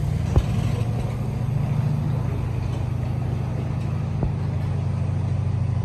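Steady low hum of a diesel locomotive engine hauling a rake of Mark 3 coaches as the train leaves, with two sharp knocks from the train, one about half a second in and one just after four seconds.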